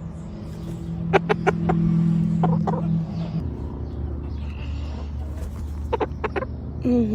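Rooster giving short clucking calls in small groups of two or three, the sounds he makes to say hi while being cuddled. A steady low hum runs under them.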